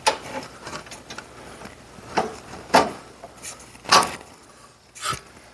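Metal parts and bolts of a bowling pinsetter clanking and clinking as they are handled and fitted, with about five sharp knocks spread over a few seconds.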